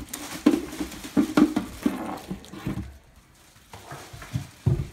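Cardboard box and packaging being handled and rummaged through: a run of irregular knocks and rustles, a short lull, then a couple of thumps near the end.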